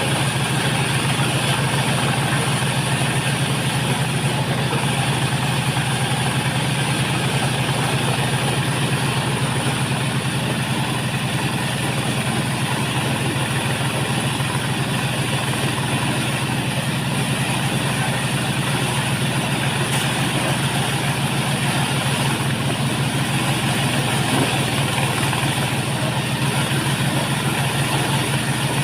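Engine-driven corn sheller running at a steady speed: an even engine hum with a machinery hiss above it, unchanging throughout.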